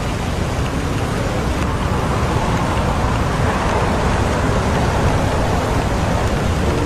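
Steady rain mixed with a constant low rumble of city traffic. In the middle, the hiss of a vehicle on the wet road swells and fades.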